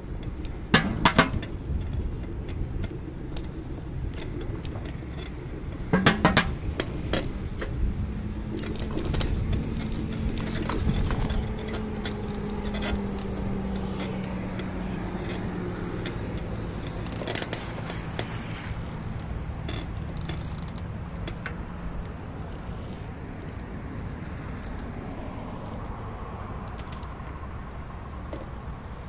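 Riding noise on a moving two-wheeler: a steady low rumble of wind and pavement, with the handlebar rattling sharply over bumps about a second in and again around six seconds. A steady hum comes in a few seconds later, slowly drops in pitch and fades out past the middle.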